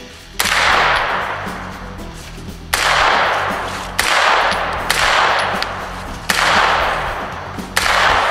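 Colt 9mm AR-15 carbine with a 10.5-inch barrel fired semi-automatically: six single shots at uneven intervals of roughly one to two seconds. Each crack is followed by a long echo that fades away.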